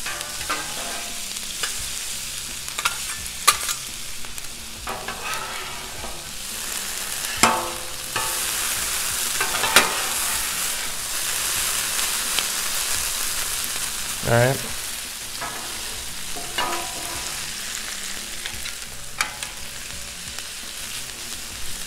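Hash browns and diced smoked sausage sizzling on a hot steel Blackstone griddle top while two metal spatulas scrape along it and clank against it as the food is turned. The sizzle grows louder about a third of the way through, with several sharp spatula clanks.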